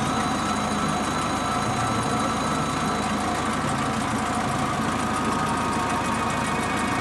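Small diesel forest-railway locomotive's engine running steadily.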